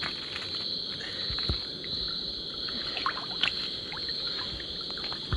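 Water sloshing and splashing as people wade through a shallow river, with scattered small splashes and knocks. A steady high chorus of insects, crickets, runs behind.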